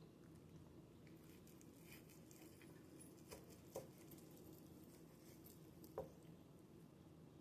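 Near silence: room tone with three faint, short clicks, the last about six seconds in.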